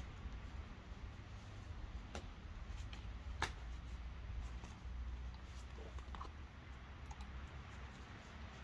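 Scattered clicks and scuffs of a climber's hands and rubber climbing shoes on the rock, with one sharper knock about three and a half seconds in, over a low steady rumble.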